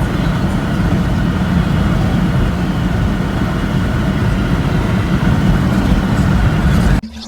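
BMW E39's M51 six-cylinder turbo-diesel running with a steady, loud low rumble that cuts off abruptly near the end.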